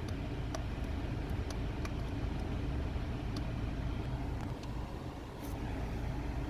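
Nissan Xterra running at idle with its air conditioning on, a steady engine rumble under the even rush of the blower fans. The rear AC cooler is working again after its faulty switch was replaced.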